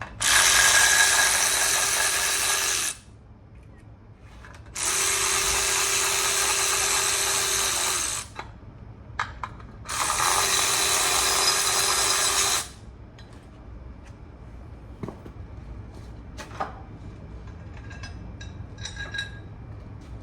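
Impact wrench run in three bursts of about three seconds each, loosening bolts during an engine teardown, with a steady hum under the hiss. Light clicks and knocks of parts and tools being handled follow.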